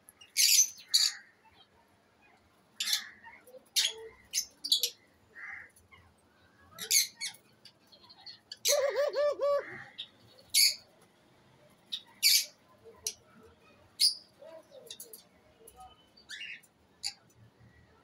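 Aviary lovebirds giving sharp, high-pitched shrieking calls in short separate bursts, a dozen or so spread over the time. About nine seconds in, a lower, wavering call lasting about a second.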